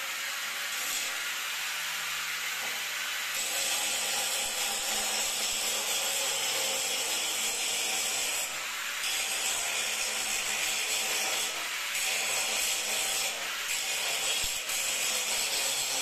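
Ingco angle grinder running against a steel grate, its disc grinding the metal slats in a steady, high grinding noise. The noise dips briefly every couple of seconds as the disc is lifted and moved along the grate.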